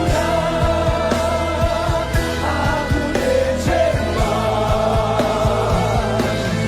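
Gospel worship music: voices singing held, sliding notes over a band with bass and a steady drum beat.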